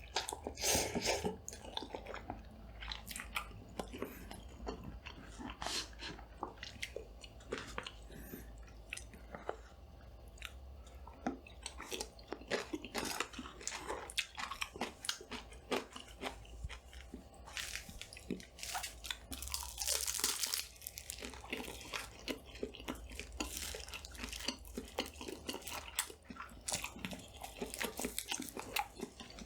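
Close-miked chewing and crunching of food in a mukbang: irregular wet bites and crisp crackles, with a longer, louder noisy burst about two-thirds of the way in. A steady low hum from an added studio light runs underneath.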